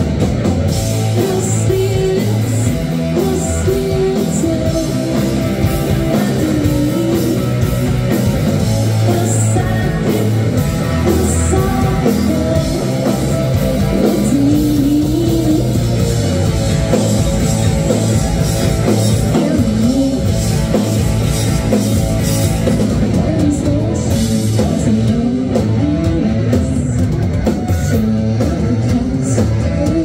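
Live rock band playing at full volume: electric guitars, bass guitar and drum kit, with a woman singing.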